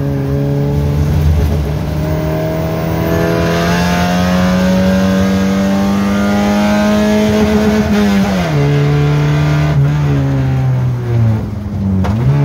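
Naturally aspirated 2.0-litre four-cylinder Kadett GSI engine with a 4-into-1 header and open intake, heard from inside the stripped cabin, pulling hard with its pitch rising slowly for several seconds. The pitch falls sharply as the driver lifts, then dips briefly and climbs again near the end.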